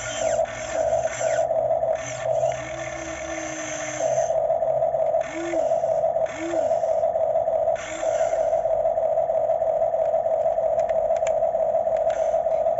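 Electric motors of a Huina RC excavator whining steadily as the boom and bucket move. The whine stops briefly a few times, with a few short rising-and-falling whirs in the middle.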